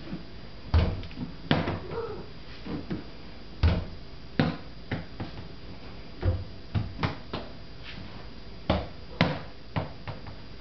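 Small ball bouncing on a parquet wood floor as it is thrown for a cat to chase: a series of sharp, irregularly spaced knocks, the loudest about a second and three and a half seconds in.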